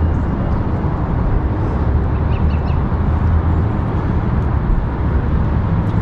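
Steady low rumbling outdoor background noise, with a few faint high chirps about two and a half seconds in.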